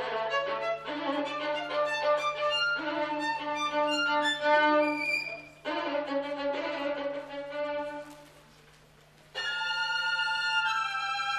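Unaccompanied solo violin playing a quick run of bowed notes over a repeated lower note, then a phrase that fades to a brief pause about eight seconds in, followed by loud held notes.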